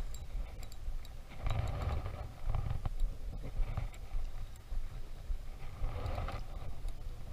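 Wind rumbling on a wearable action camera's microphone in shallow surf, with soft water movement.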